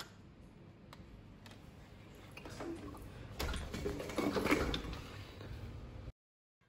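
Scuffling and rustling of clothes and bodies moving, with scattered clicks and knocks. It grows louder about halfway through, then cuts off abruptly to silence near the end.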